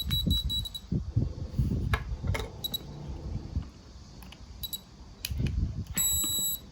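High-pitched electronic beeping from a phone security display stand's alarm unit: a rapid beeping stops about a second in, a few short chirps follow, and a longer single beep near the end signals that the unit has armed. Light plastic handling clatter runs underneath.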